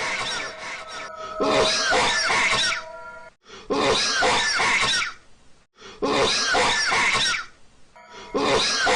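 A man coughing in loud, harsh bouts, each lasting over a second, coming about every two and a half seconds with four fresh bouts starting. Steady background music tones sound between the bouts.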